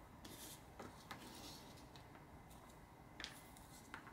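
Near silence with a few faint clicks and a brief rustle near the start: small tools and parts being handled while a modelling workbench is tidied.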